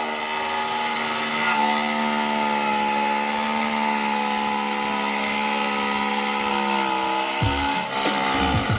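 Electric power tool motor running steadily at a near-constant pitch, working wood for the cabinet, with some low knocks coming in near the end.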